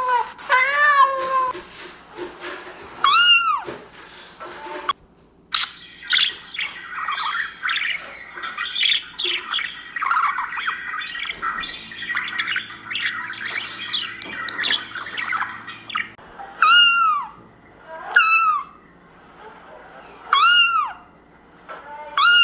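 A tabby cat meowing repeatedly at a blue budgerigar in short, rising-and-falling calls, a few near the start and four more in the last few seconds. In between, from about six to sixteen seconds, the budgerigar chatters in a fast, busy twitter of squawks and chirps.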